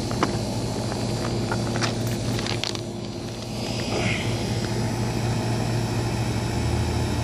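Rounded roof-gravel stones clicking and clacking against each other a few times in the first three seconds as a stone is picked out of them, over a steady low mechanical hum.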